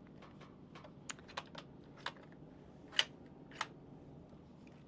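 Light, irregular clicks and taps of small hard parts being handled, with two sharper clicks about three seconds in.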